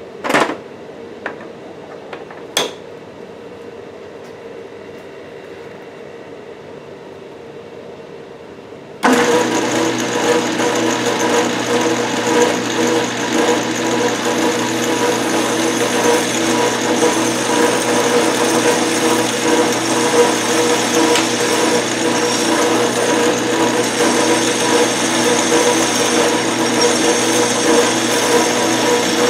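Craftsman Atlas metal lathe switched on about nine seconds in, then running steadily with a constant mechanical whine as the parting tool is fed in to part off the work. Before it starts, a few sharp clicks come from setting up the tool post.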